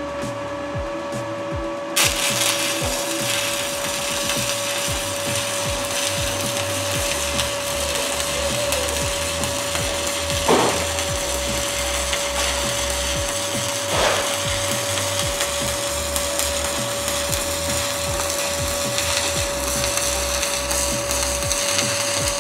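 DC stick welding arc at around 120 amps: the arc strikes suddenly about two seconds in and crackles steadily, with a couple of louder pops midway, then stops. The current is set a little too hot.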